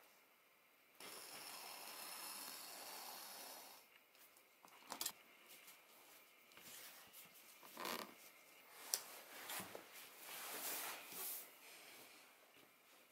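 A metal ruler and stiff card pattern sheets being slid and handled on a cutting mat. A steady scraping rustle lasts about three seconds, then comes irregular paper rustling with a few light sharp knocks.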